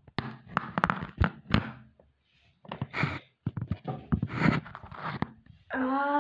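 Irregular rustling, scraping and knocks from a phone camera being handled with its lens covered. Near the end a steady pitched hum begins.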